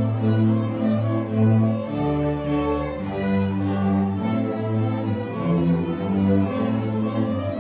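Student string orchestra playing: violins and violas bowing over held low notes that change every second or so.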